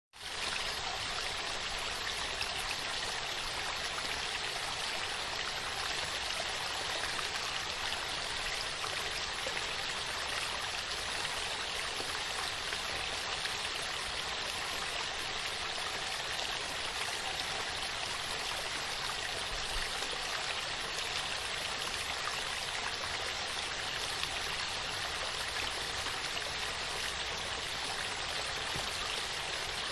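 Waterfall: a steady rush of falling water, an even hiss with little deep rumble, fading in at the very start.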